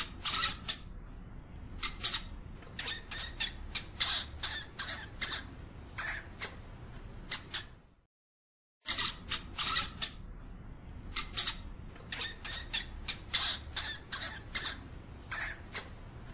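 European hamster (Cricetus cricetus) giving short, sharp, high-pitched squeaks in quick, irregular runs. The calls break off about eight seconds in, and the same run of squeaks starts again after about a second of silence.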